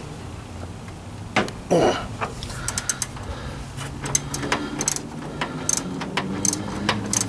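Ratchet wrench clicking in quick, uneven runs while loosening the fitting on a car's AC high-pressure line, after a short scrape of metal about a second and a half in.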